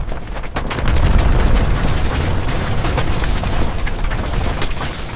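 Building-collapse explosion sound effect: a deep rumbling blast that swells to its loudest about a second in, with many sharp crackles and crashes of falling debris over it. It slowly starts to die away near the end.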